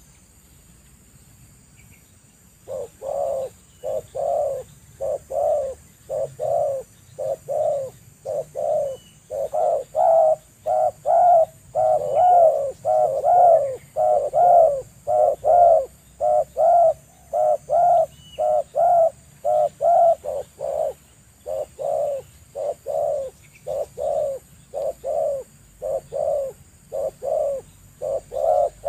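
Spotted dove cooing: a long run of short, low coos, about two a second, starting about three seconds in.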